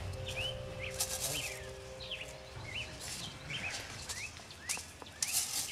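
Small woodland birds chirping over and over, short quick rising-and-falling notes. A few brief noisy bursts break in, about a second in and again near the end.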